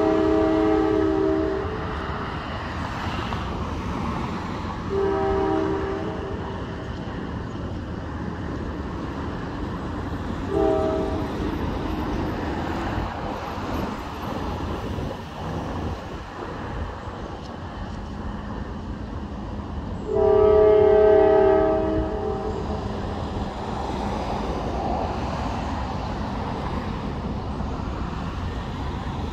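Diesel locomotive's multi-note air horn sounding the grade-crossing signal as the train approaches the crossing: long, long, short, long. The blasts are spread out over a steady low rumble, and the last long blast, about two-thirds of the way in, is the loudest.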